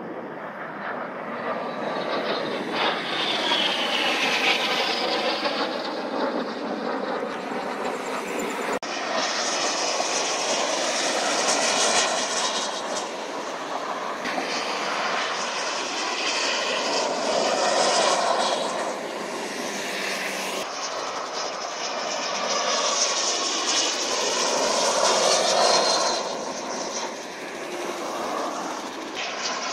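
Jet engine noise of BAE Hawk jet trainers flying a display and coming in low to land: a steady roar that swells and fades as the aircraft pass, with a whine sweeping in pitch a few seconds in.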